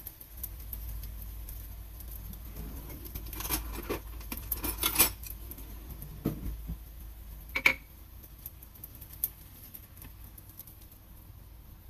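Noodle pancakes frying in an oiled nonstick pan with a light sizzle, while a silicone spatula scrapes and turns them. There is a flurry of scrapes and taps a third of the way in, then a single ringing clink of a utensil on crockery a little past halfway.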